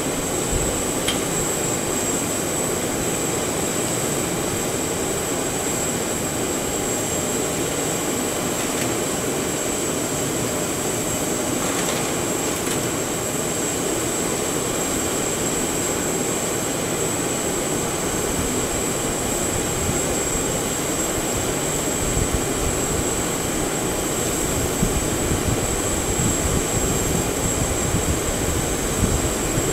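Steady turbine whine and rush from the parked Boeing 737-800's auxiliary power unit, running to supply the aircraft during boarding, with a thin high whistle held throughout. A little more low rumble and a few small knocks come in over the last several seconds.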